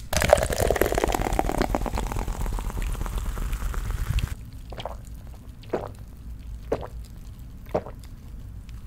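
A can of cola is cracked open, then the cola is poured fizzing into a glass for about four seconds. The pour stops, and four gulps follow about a second apart as it is drunk.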